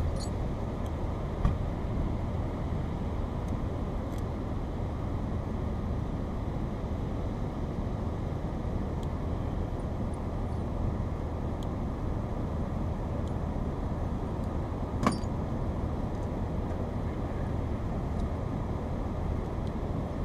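Steady low rumble with two sharp metallic clinks, about a second and a half in and again about three quarters of the way through, as tow-hook hardware is fastened under the front of a car stuck in sand.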